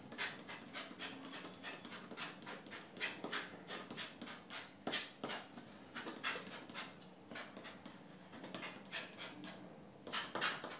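Steel palette knife scraping and dabbing paint on a stretched canvas: short, rasping strokes, about three or four a second at an uneven pace.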